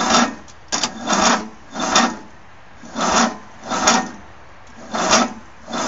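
Footsteps crunching on loose ground at a walking pace, about one step a second, each a short rasping crunch.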